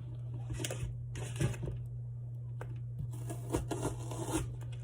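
Knife cutting an onion on a cutting board: a few irregular sharp knocks and crisp rustling strokes, busiest near the end, over a steady low hum.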